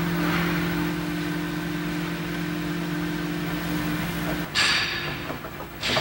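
A steady machine hum, then about four and a half seconds in and again near the end, short bursts of metal scraping and clanking as a long spanner wrench turns the nut on a vibrator motor shaft clamped in a steel bench vise.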